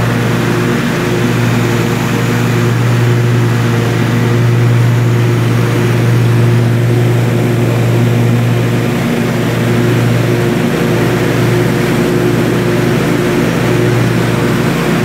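Scag V-Ride stand-on mower's V-twin engine running steadily under way, a constant low engine hum with little change in speed.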